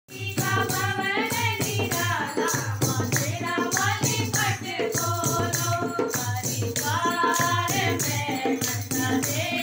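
Women singing a Hindu devotional bhajan to the goddess, over a steady beat of dholak hand drum and hand clapping.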